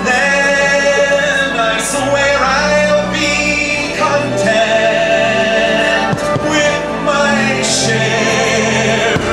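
Fireworks-show soundtrack music with singing voices holding long notes.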